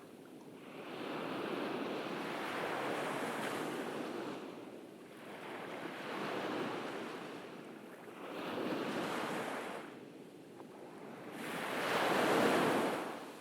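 Ocean waves washing onto a beach in slow surges, four in turn, the last near the end the loudest.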